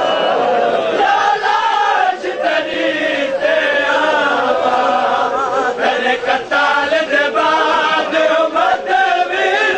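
Crowd of men chanting a noha (Shia mourning lament) together, many voices in a wavering melody, with a few sharp slaps scattered among them.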